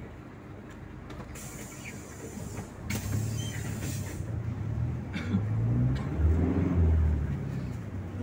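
PAZ 4234 minibus's diesel engine, heard from inside the cabin, pulling the bus along and getting louder as it accelerates, its pitch stepping up and down through the gears about halfway through. A sharp hiss is heard about three seconds in.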